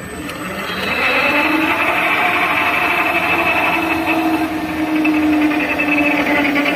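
Label slitting machine with turret rewinder running up to speed: its sound climbs over the first second, then runs steadily with a whine from its motors and rollers.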